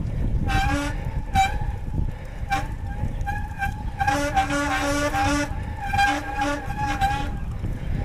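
Bicycle disc brake squealing in repeated bursts as the rider brakes hard while pedalling: a honking squeal at several pitches together, longest and loudest from about four to five and a half seconds in. The rotor and pads are being bedded in after a de-squeak treatment, to burn off the contaminants that cause the squeal.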